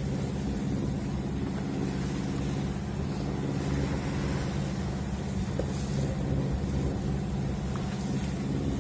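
A sailing yacht's engine running at a steady speed: a low, even drone.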